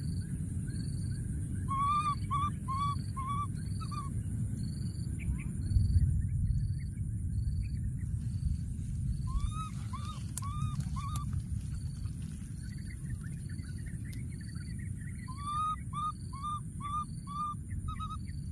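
Wildlife calls: three bouts of four to six short, rising-then-falling calls, over a steady run of high chirps about twice a second and a constant high hiss. A low rumble runs underneath throughout.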